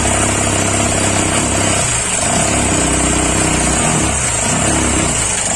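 Honda Shine's single-cylinder four-stroke engine idling steadily with a noisy mechanical top end, the result of being run without engine oil; the noise comes mainly from a damaged rocker arm and its worn cage bearing.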